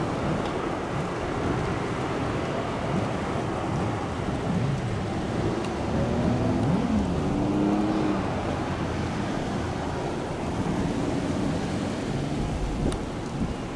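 Heavy fire truck engines running and pulling through an intersection, their pitch rising and falling midway, over a steady low rumble of traffic.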